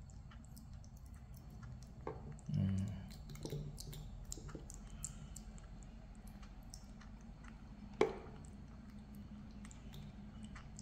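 A baby monkey being spoon-fed porridge: faint wet smacking and chewing with scattered small clicks of a metal spoon, the sharpest click about eight seconds in.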